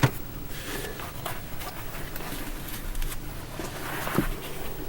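Faint rustling and scattered light clicks, with one sharper click at the very start.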